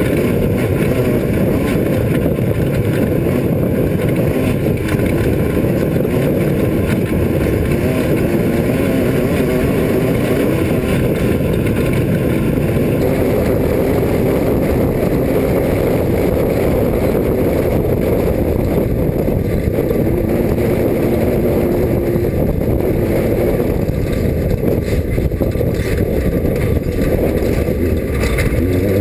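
Class 5 off-road race car's engine running loud and steady, its note wavering slightly up and down.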